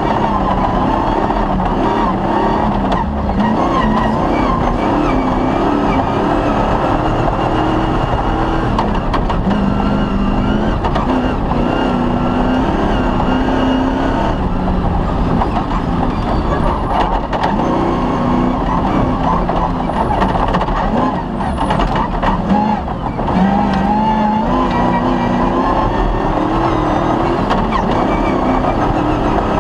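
Off-road rally car engine running hard, its pitch rising and falling as the car accelerates and shifts. The engine note drops briefly about 21 seconds in, then picks up again.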